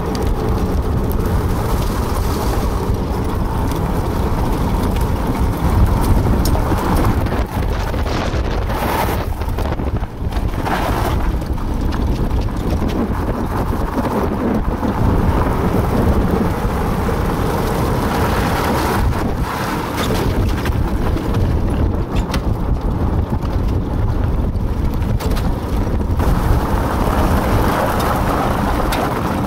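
Four-wheel dog cart rolling over a gravel road: a steady low rumble with scattered knocks, and wind buffeting the microphone.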